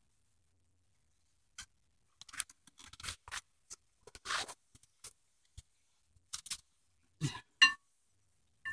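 Hand tools and loose metal parts being handled on a car: scattered short clicks and scrapes, with a louder ringing metal clink near the end.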